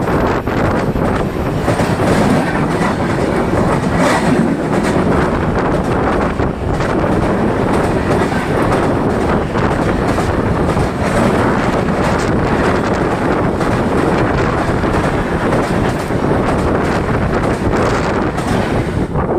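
Mumbai suburban local train running along the track, heard from aboard: a steady loud rumble with wheels clattering over the rail joints.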